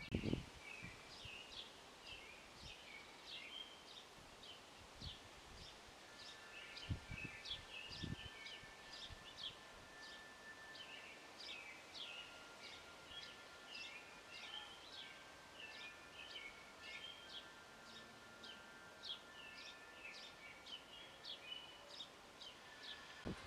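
Songbirds chirping continually, a fast run of short, high, downward-sweeping chirps, with faint wind-chime tones ringing on underneath.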